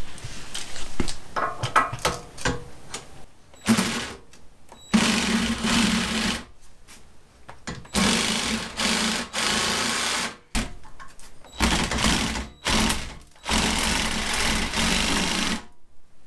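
A small power tool cutting into plastic trim, running in repeated bursts of one to two seconds with a steady hum under the cutting noise. It stops and starts about seven times.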